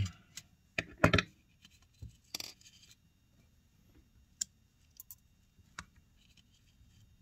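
Small metal pliers clicking and scraping against a tiny metal plate inside an iPad mini as it is worked loose. There is a quick run of sharp clicks in the first couple of seconds, loudest about a second in, then a few light, scattered ticks.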